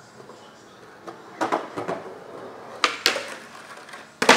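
A skateboard clattering: a series of sharp wooden knocks, a couple about a second and a half in, two more about three seconds in, and the loudest near the end.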